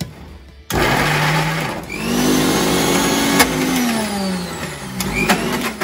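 Preethi Galaxy mixer grinder grinding soaked soya chunks in its steel jar, run in pulses: it starts suddenly about a second in, dips and restarts, winds down in pitch, then gives one last short burst near the end.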